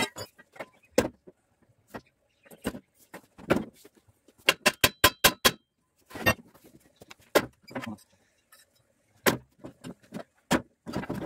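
Sharp metallic clinks and knocks of tools and parts on a small air-cooled single-cylinder walk-behind engine being worked on by hand. They come at irregular intervals, with a quick run of about half a dozen clicks near the middle.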